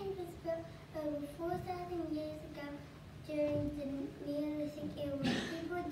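Children singing a slow melody in held, gliding notes, with a brief noise about five seconds in.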